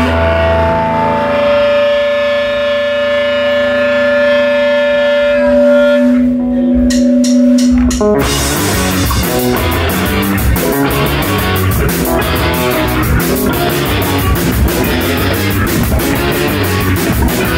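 Live punk rock band: held guitar notes ring on steadily, a few sharp hits sound near six to eight seconds in, and at about eight seconds the full band kicks in with guitar and drums playing fast.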